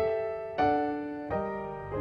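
Slow background music on piano, a new note or chord struck about every two-thirds of a second and left to ring and fade.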